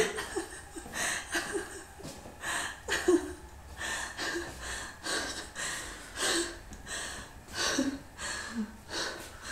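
A woman's quiet, breathy laughter and gasping breaths in short bursts, about one a second.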